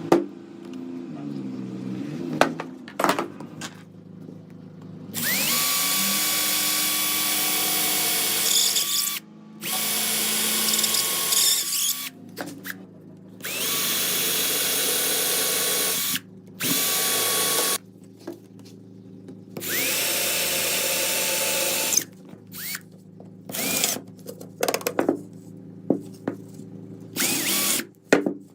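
A handheld electric power tool, drill-like, run in repeated bursts of one to four seconds. Each burst starts with a rising whine as it spins up, with short knocks and clicks in the gaps between.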